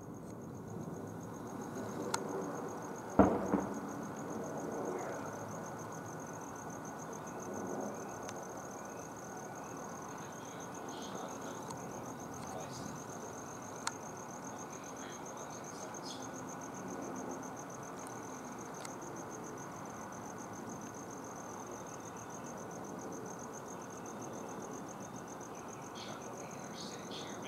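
Crickets chirping steadily, a continuous high pulsing trill over a steady background noise, with one sharp knock about three seconds in and a smaller click around fourteen seconds.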